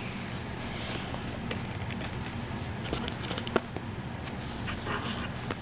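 A children's picture book being handled and its page turned: a few light clicks and paper rustles over a steady low hum.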